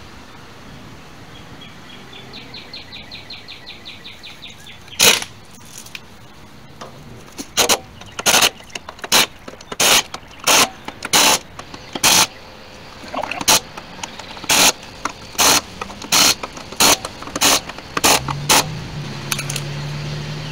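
Pneumatic impact wrench on a trailer wheel's lug nuts, firing in about fifteen short, loud bursts from about five seconds in until near the end. A faint fast rattle comes just before the first burst.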